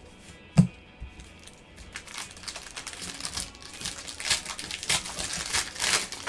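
A foil trading-card pack crinkling and tearing as it is opened, starting about two seconds in, after a single sharp knock near the start.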